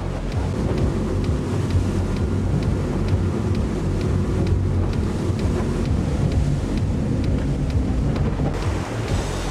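A motorboat's engine running steadily under way, with wind buffeting the microphone and water rushing past the hull.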